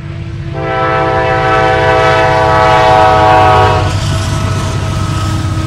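Diesel freight locomotive, a Norfolk Southern EMD SD70ACC, sounding its air horn in one long blast of about three seconds that cuts off about four seconds in, over the low rumble of the approaching train's engine.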